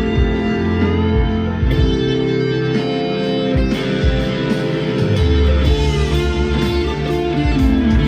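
PRS 245 electric guitar with humbucker pickups played through high-gain distortion: fast up-tempo picked riffs and sustained notes, continuous and loud.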